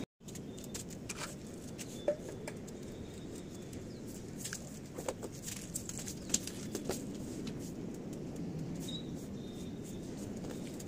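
Scattered clicks and scrapes of a metal scraper blade working caked soil off a concrete roof floor and into a metal pan, sharpest about two seconds in and again about six seconds in, over a steady outdoor hum. Faint high chirps come and go in the background.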